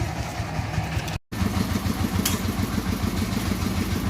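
Engine of a piece of road construction machinery running steadily with a low, even pulse. The sound drops out for an instant about a second in.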